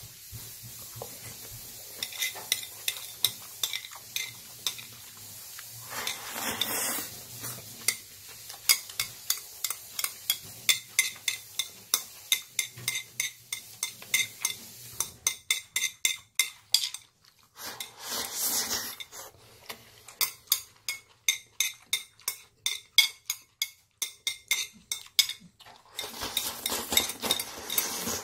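Close-up eating sounds of jjajang ramen: noodles in black bean sauce slurped in three long draws, the last with the plate at the lips, between runs of rapid clicking chewing and metal chopsticks tapping and scraping the plate.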